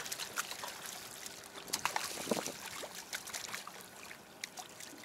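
A hooked striped bass thrashing at the water's surface beside the boat: a quick, irregular run of wet splashes and slaps, loudest about two seconds in and easing off near the end.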